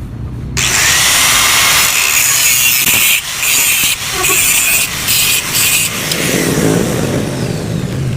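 Angle grinder starting up and grinding metal, with a few short breaks as the disc lifts off, then winding down near the end.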